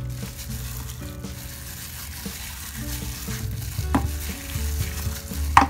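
Plastic-gloved hands rubbing and turning a raw whole chicken in a bowl to work the seasoning in, a steady handling noise. Two sharper knocks come through it, the louder one near the end.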